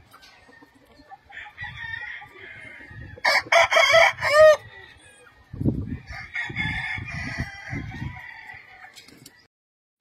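A gamecock crows once, about three seconds in, a loud crow lasting about a second and a half. Softer clucking from chickens comes before and after it.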